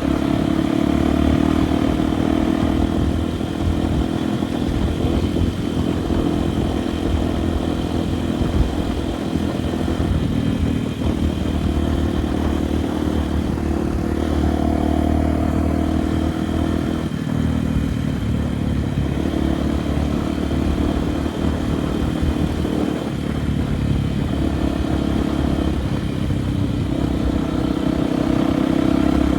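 Honda Tornado 293's single-cylinder four-stroke engine running steadily while the bike is ridden, the throttle easing off and picking up again a few times.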